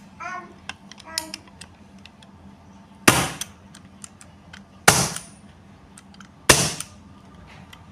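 Airsoft Makarov pistol firing three single shots about a second and a half to two seconds apart, each a sharp crack with a short ringing tail, after a few small handling clicks.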